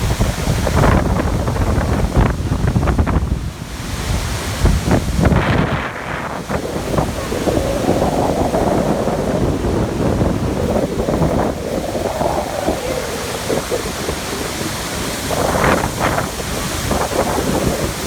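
Steady heavy rush of falling water at Iguazú Falls, with wind buffeting the microphone, strongest in the first few seconds.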